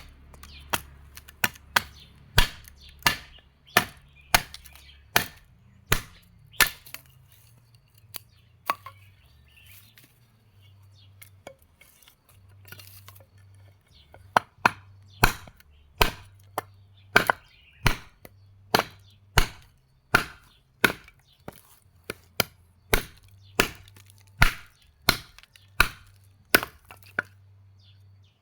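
Repeated sharp strikes in a steady rhythm, about one and a half a second, easing off for a few seconds in the middle before picking up again.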